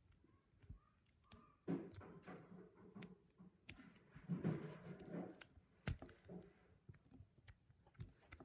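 Faint, irregular clicks and scrapes of a lock pick and tension wrench working the pins inside a cheap padlock, with soft handling rustles about two and four and a half seconds in.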